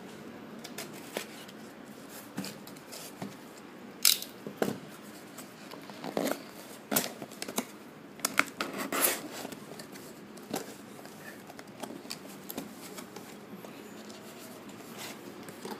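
A cardboard shipping box being cut and torn open by hand: irregular sharp snips, scrapes and short tearing sounds of packing tape and cardboard, busiest in the middle.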